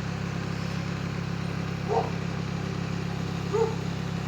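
Engine of a heavy grapple machine running steadily, a low continuous rumble.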